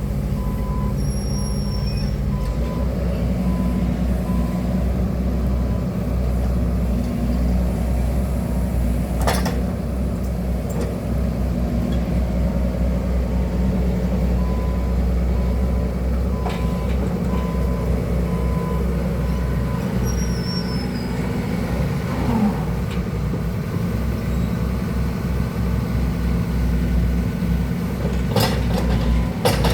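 Excavator's diesel engine running steadily. Faint repeated beeping comes and goes, and a few sharp knocks are heard, one about nine seconds in and a couple near the end.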